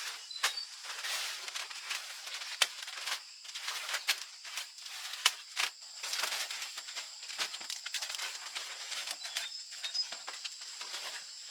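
Steady high-pitched insect drone of the rainforest, with scattered sharp clicks and snaps from close-up handling work, the loudest about two and a half and five seconds in.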